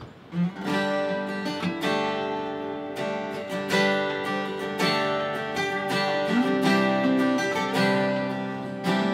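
Two acoustic guitars strumming chords in the intro of a country song, starting with a single low note about half a second in.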